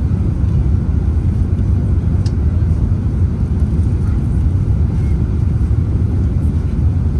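Steady low rumble of an Airbus A380-842's Rolls-Royce Trent 970 engines and rushing air, heard from inside the cabin as the aircraft climbs out after takeoff.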